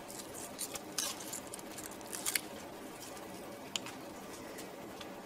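Clear adhesive tape being peeled off a stack of thin wooden case panels, faint crackling with a few light clicks as the panels are handled.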